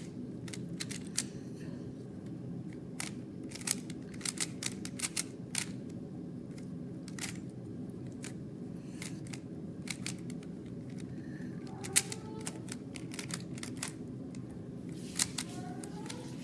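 3x3 Rubik's cube being turned fast by hand: the plastic layers click and clack in irregular quick runs, over a steady low hum.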